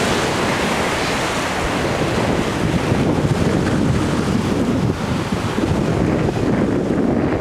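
Big ocean waves breaking and washing over a lava-rock jetty: a dense, steady rush of surf, with wind buffeting the microphone. The hiss of the water thins out near the end.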